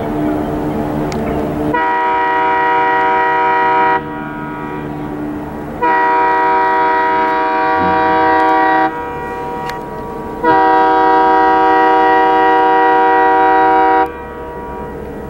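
A boat's horn sounding three long blasts, each a chord of several steady notes, the last one the longest at about three and a half seconds.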